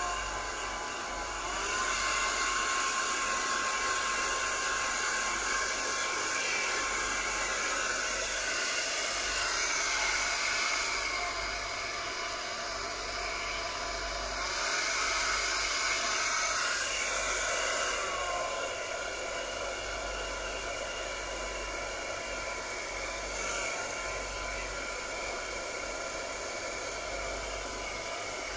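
Handheld hair dryer running with a steady blowing whir, swelling louder and easing off at times as it is moved around over a wet kitten's fur.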